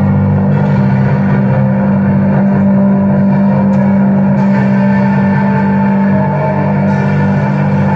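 Loud, steady drone music: a dense low hum with several held tones layered above it, changing slightly about six seconds in.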